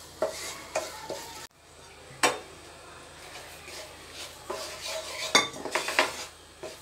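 Wooden spatula stirring and scraping a butter-and-flour roux around a nonstick frying pan, with repeated light knocks against the pan and a faint sizzle as the flour roasts. The sound cuts out briefly about a second and a half in.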